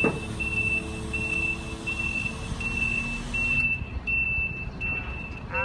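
Crawler crane's travel alarm beeping, a single high tone repeating a little more than once a second, over the low rumble of its engine as it crawls off the trailer down the ramps.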